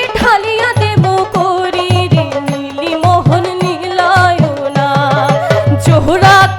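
Bhawaiya folk music from Bengal: a bending melodic line over a hand-drum beat.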